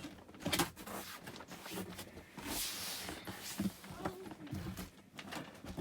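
Cardboard box and its packaging being handled and opened: scattered knocks and clicks with rustling.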